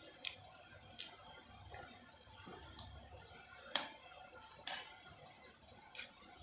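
Eating noises: about seven short, sharp clicks at irregular intervals of roughly a second, over a faint low hum.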